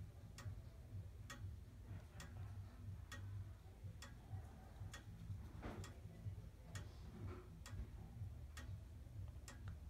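Colonial grandfather clock with a chain-driven movement ticking faintly and steadily, its escapement clicking at an even rate.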